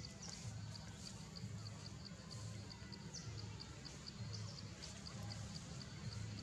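Forest ambience: a high-pitched chirp repeating steadily about three times a second over a low hum that pulses about once a second.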